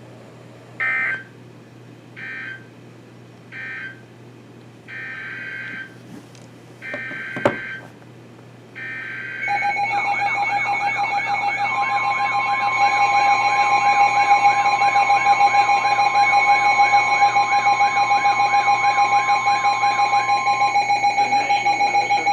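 Emergency Alert System signal on weather radio: several short bursts of buzzing two-tone digital data, the SAME header coding the alert. From about nine seconds in comes a loud electronic alert tone: steady tones under a fast, repeating warble, with a further steady tone, typical of the weather radio warning alarm, joining for most of the rest.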